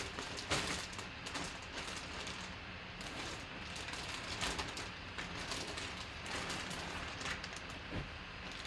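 Clear plastic bag crinkling and rustling in the hands as it is unwrapped from a folded football jersey, with an irregular run of small crackles.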